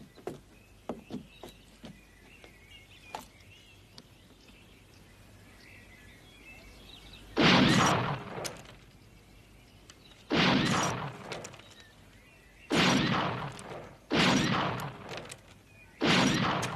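Five loud gunshots in a trick-shooting act, each followed by about a second of ringing echo. The first comes about seven seconds in, the rest two to three seconds apart. Before the shots there are only faint scattered clicks and bird chirps.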